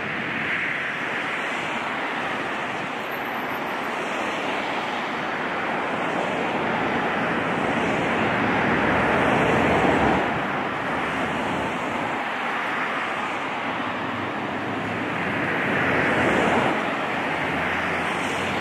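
Traffic passing on a busy street: a steady wash of tyre and engine noise from cars and trucks, swelling as vehicles go by about halfway through and again near the end.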